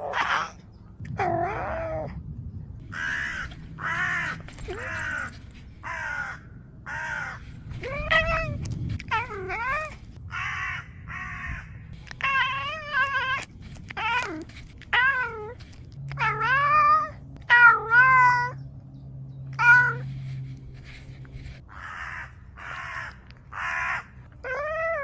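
A domestic cat calling over and over in short separate calls, some rough and hissy, others pitched meows that bend up and down in pitch.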